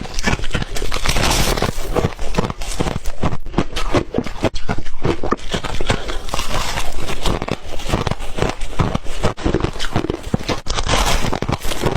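A person chewing and crunching white ice, a rapid, irregular run of loud crunches close to the microphone.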